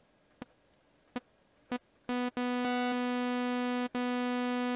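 Native Instruments Massive software synthesizer playing a bright, buzzy sawtooth-type note. Three short blips come first, then a held note starts about two seconds in, cutting out and restarting twice.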